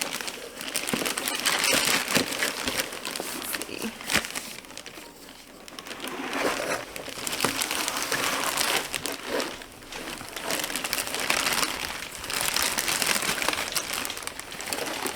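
Packing material around a mail-order bare-root pear tree crinkling and rustling as it is handled and unwrapped, in several loud bouts that cut off abruptly at the end.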